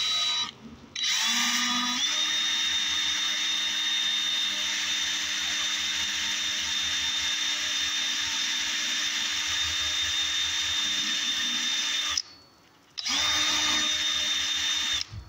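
Electric drill boring out a broken bolt in a cylinder head: a brief blip, then a long run whose whine rises as it spins up and then holds steady, a stop of about a second, and a final run of about two seconds.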